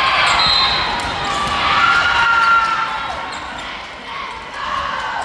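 Indoor volleyball match in a gymnasium: athletic shoes squeaking on the court floor in short rising and falling squeals, over voices of players and spectators echoing in the hall.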